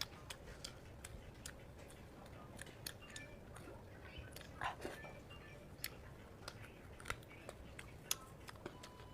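Close-up mouth sounds of someone eating fatty steamed pork: soft, wet chewing with scattered sharp smacks and clicks at an uneven pace, the loudest a little under five seconds in.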